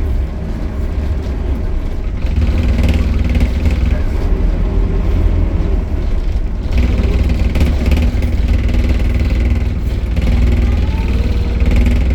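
Optare Solo single-decker bus's diesel engine running under way, a steady low drone that eases briefly about six and a half seconds in and then picks up again.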